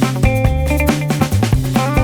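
Background music: a funky groove with electric guitar, bass and a steady drum beat.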